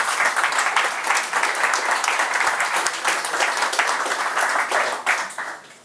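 Audience applauding: dense, steady clapping from a roomful of people at the end of a talk, dying away near the end.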